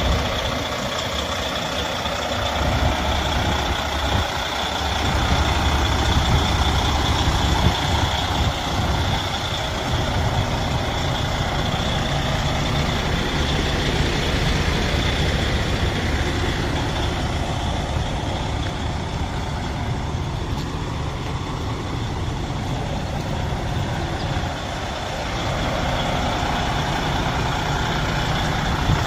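Freightliner Cascadia semi tractor's diesel engine running steadily at idle.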